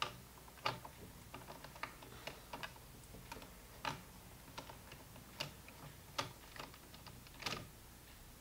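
Irregular light clicks and taps of a Phillips screwdriver working small screws out of a plastic data logger housing, with a few sharper knocks among them.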